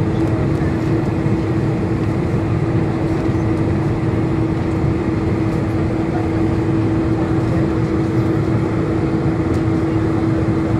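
Jet airliner cabin noise while taxiing: the engines run at low power as a steady rumble with a constant hum held on one pitch.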